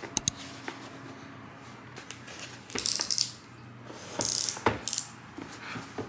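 A taped cardboard box being cut open with a small blade: a couple of sharp clicks, then two scraping strokes through the packing tape about a second and a half apart, the second ending in a knock against the cardboard.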